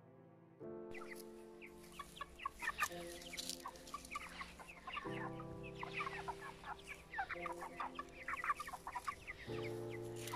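A flock of white broiler chickens about five weeks old, calling with many short calls in quick succession as they forage, starting about a second in. Soft guitar music plays underneath.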